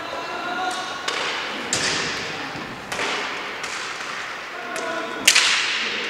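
Sharp clacks and knocks of inline hockey play, from sticks and puck, ringing out in a large hall, the loudest about five seconds in.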